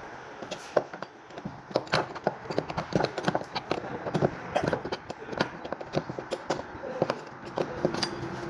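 Irregular clicks and knocks of metal parts of a grease gun being handled and worked on, several a second.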